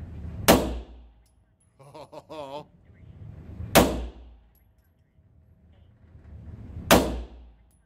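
Three shots from a centerfire handgun, about three seconds apart, each sharp report followed by a short echoing tail in an indoor range.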